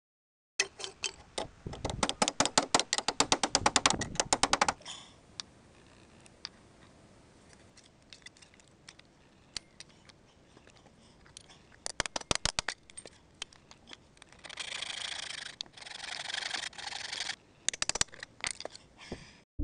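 Sped-up metalworking on a stripped Citroën 2CV chassis: rapid runs of metallic clicks and knocks from hammering and prying, a few seconds of harsh rasping noise about two-thirds through, then a burst of hammer taps on a chisel near the end.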